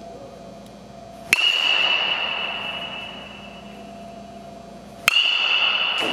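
Metal baseball bat striking a tossed ball twice, about four seconds apart, each contact a sharp ping with a high ringing that fades over a couple of seconds.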